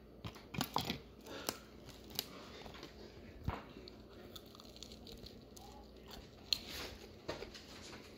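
Quiet, scattered rustles and light taps of a paper plate and a cardboard food box being handled, in short bursts with pauses between.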